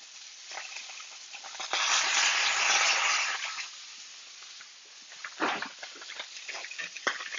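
Lamb chops sizzling in hot oil in a cast iron skillet, the sizzle swelling loudly for about a second and a half near the start, then settling back, with a few light knocks later on.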